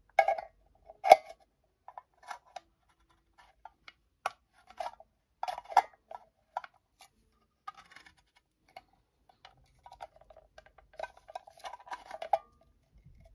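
A hand-held wheeled can opener biting into the rim of a steel tin can to punch small cuts: irregular metallic clicks and brief scraping. The loudest is a sharp click about a second in.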